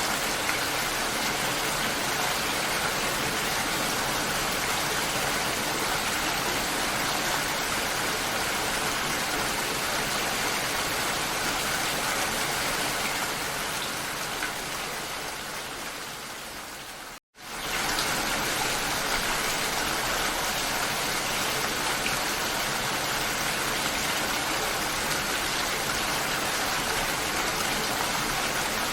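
Steady rain. About halfway through it fades down over a few seconds, cuts out for an instant, then comes straight back at full level, as at the join of a looped recording.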